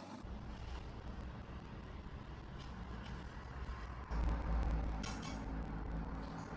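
Low, steady rumble of a motor vehicle, growing louder about four seconds in.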